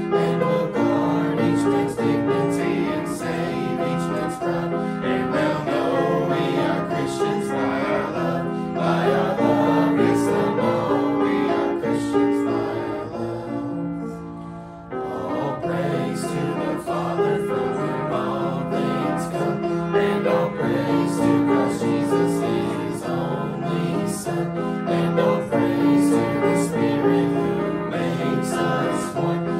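Choir singing a gospel hymn with piano accompaniment, with a brief drop in the music about halfway through before it picks up again.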